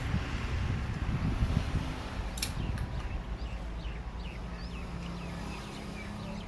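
Low rumbling handling noise, loudest in the first two seconds, with one sharp click about two and a half seconds in. Small birds chirp in short, quick falling notes through the second half.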